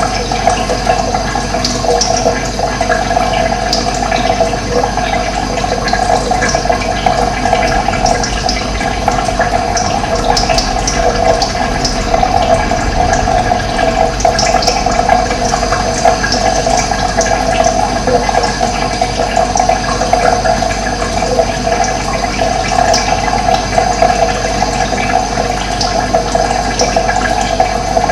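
Running water flowing steadily, a constant rushing sound, with brief high bird chirps scattered through it.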